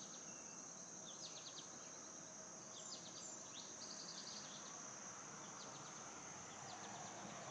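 Faint outdoor insect chorus: a steady high-pitched drone, with short rapid chirping trills breaking in every second or two.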